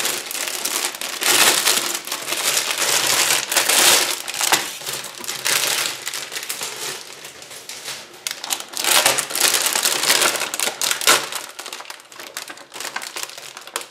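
Thin plastic bag around a comic magazine crinkling and rustling in irregular bursts as it is opened and the magazine and its bagged toy are pulled out. The rustling gets quieter near the end.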